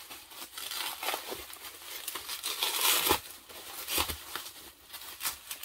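Plastic bubble wrap crinkling and rustling as it is pulled apart and unwrapped by hand, with a louder stretch of crackling about three seconds in.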